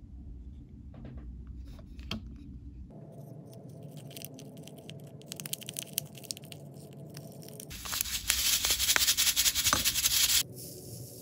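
Hands handling hard plastic toy pieces, with light clicks and taps. From about eight seconds in there are a few seconds of loud crinkling and rustling of plastic packets.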